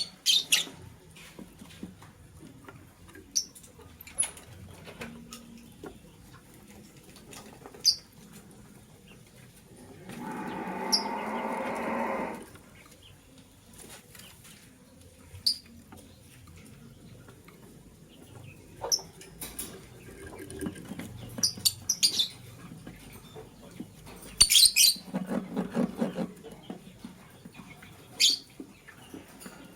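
Lovebirds giving short, sharp chirps scattered through, with a louder, lower sound lasting about two seconds about a third of the way in and a shorter one near the end.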